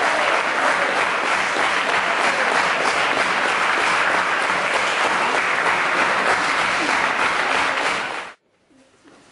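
Audience applauding steadily, then cut off sharply about eight seconds in.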